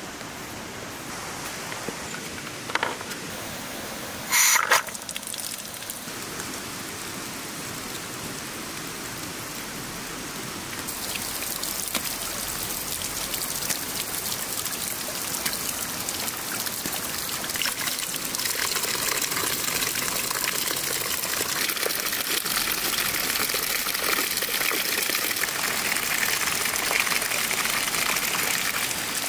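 Water running and splashing into a tiled basin as fresh vegetables and herbs are rinsed by hand, louder after about eleven seconds. A brief sharp knock about four and a half seconds in.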